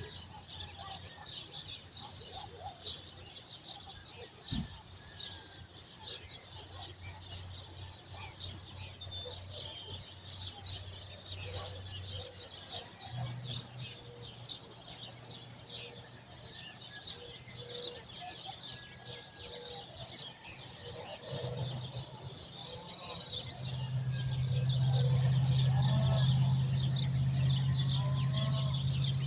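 Many small birds chirping over each other in a morning chorus. Underneath is a low, steady engine hum that swells about three-quarters of the way through and becomes the loudest sound for the last several seconds.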